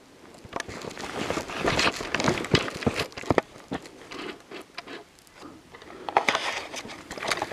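Hiking footsteps on a mountain trail: a run of irregular steps that thins out past the middle, then picks up again near the end.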